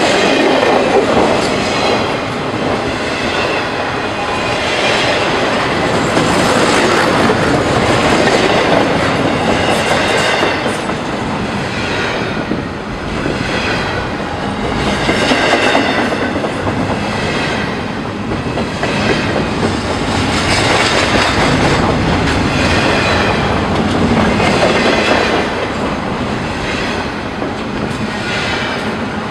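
Double-stack intermodal freight cars rolling past at speed: a loud, steady rumble and rattle of steel wheels over the rails, clattering over the joints and swelling as each car goes by.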